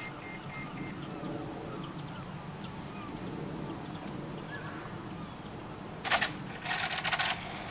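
Quiet outdoor background with faint chirps. About six seconds in, two short bursts of rattling noise come from a 1/8-scale RC eight-wheeler truck starting to drive up on concrete, still out of sight.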